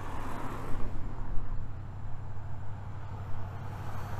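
Class 68 diesel locomotives approaching at the head of a railhead treatment train: a steady low engine drone with a hiss over it that swells slightly.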